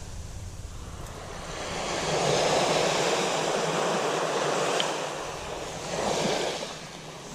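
Small waves washing up onto a sandy beach close by. One long wash swells about a second and a half in and fades by about five seconds, then a shorter one comes about six seconds in.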